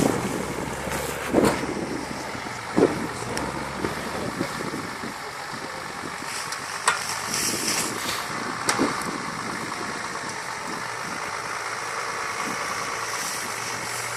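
Off-road vehicle engine running steadily, with a few short sharp knocks scattered through it.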